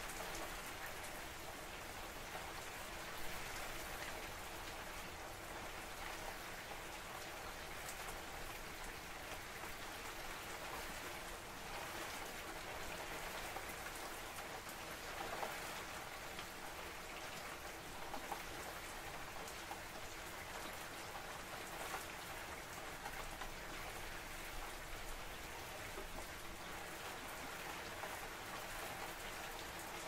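Steady rain falling, an even dense patter of drops, with now and then a single sharper drop striking close by.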